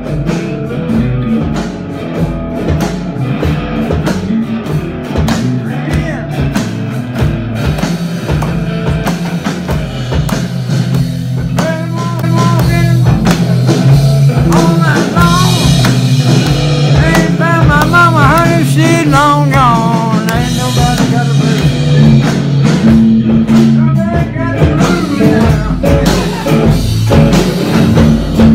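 Small live band playing a blues tune on electric guitar, electric bass and an electronic drum kit, with a wavering lead melody above. The band gets louder about twelve seconds in.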